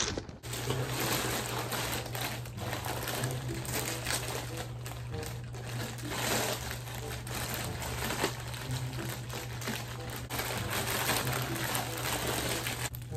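Plastic mailer bag crinkling and rustling as it is handled and pulled open, over a steady low hum.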